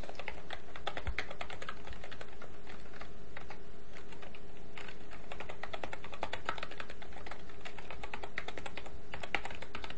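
Typing on a computer keyboard: quick runs of key clicks with short pauses between them, over a steady faint hum.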